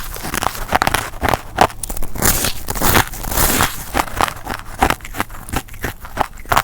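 White ice being bitten and chewed close up: irregular crunching and crackling, several crunches a second.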